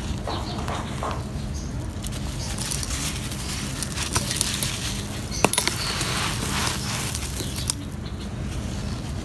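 Hands crumbling a molded block of dry, gritty sand and gravel, the grains crunching and pattering as pieces break off and fall onto a loose pile. A sharp crack stands out about five and a half seconds in.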